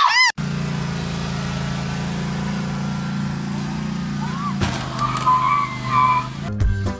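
A brief loud shriek at the very start, then a stand-on zero-turn lawn mower's engine running steadily with a low drone.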